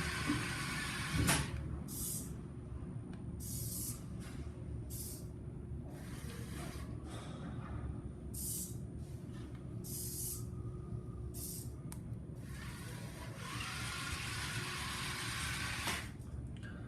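Small robot car's DC gear motors whirring in repeated short runs, several stops and starts, each run with a rising whine as the motors spin up, the longest near the end.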